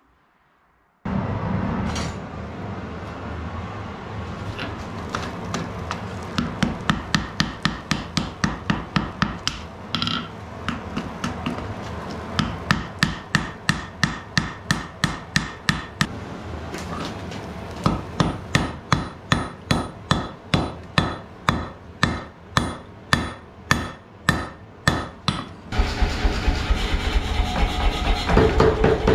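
Hand hammer striking a glowing billet of stacked medium carbon steel on an anvil, about two to three blows a second in two runs, over a steady rushing noise; this is the billet being forge-welded. Near the end a pneumatic air hammer takes over, pounding the billet in fast, heavier blows.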